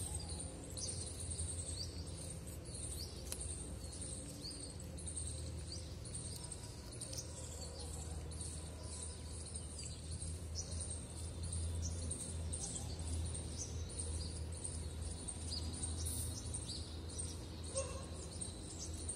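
Small birds chirping, many short high chirps repeating throughout, over a steady low background rumble.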